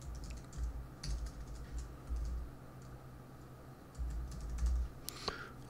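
Computer keyboard typing: scattered, irregular keystrokes, with a few low thumps underneath.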